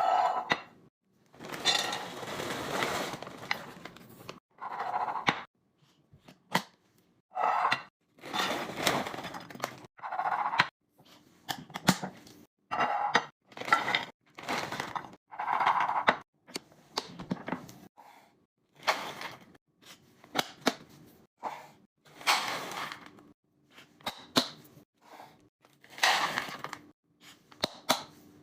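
Restocking and organizing sounds: containers and packaged items being handled and set down, with clinks, knocks and rustling in a string of separate sounds every second or two.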